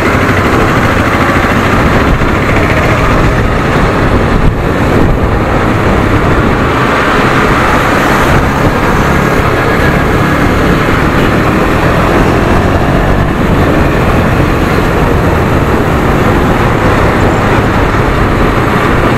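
KTM Duke 250 motorcycle's single-cylinder engine running while the bike rides along in traffic, heard from the rider's seat under a steady rush of road and wind noise.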